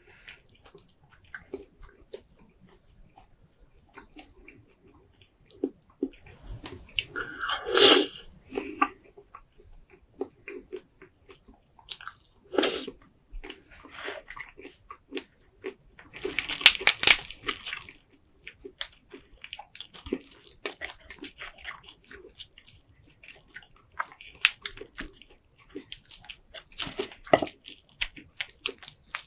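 Close-miked eating of a seafood boil: chewing and biting with small wet clicks and smacks, and a few louder sharp bursts about eight, thirteen and seventeen seconds in.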